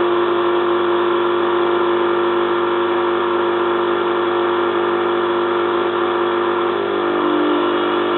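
Zanussi FLA1002W washing machine's motor running steadily as the drum turns a heavy duvet load at the start of its spin, failing to reach distribution because of the load. A second, lower tone joins near the end.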